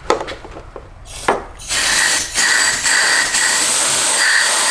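Can of compressed air (air duster) handled with a few clicks, then sprayed in a long steady hiss starting about a second and a half in, with a brief break, chilling the mass airflow sensor's intake air temperature sensor.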